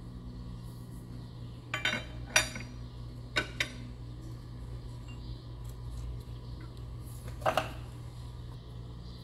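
Metal tools and engine parts clinking as they are picked up and set down: a cluster of sharp clinks between about two and four seconds in, the loudest about two and a half seconds in, and one more near the end, over a steady low hum.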